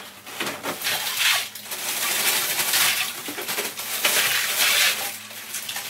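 Ice cubes poured from a plastic bag into a bathtub of water, a dense clattering rush of tumbling ice that eases off near the end.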